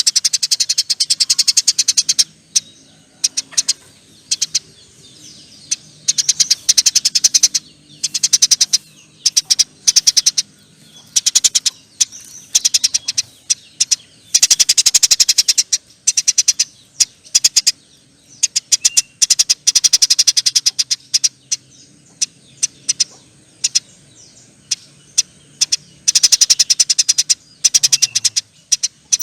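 Eurasian tree sparrows chattering: long, very rapid trains of high chirps that come in bursts of one to two seconds with short pauses between.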